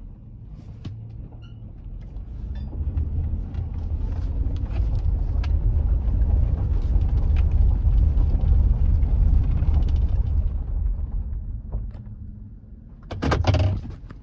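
A 2012 GMC Sierra 1500 pickup heard from inside the cab, its engine and tyre rumble building as it accelerates and fading as it coasts back toward idle. Near the end there is a short burst of loud knocks and rustling.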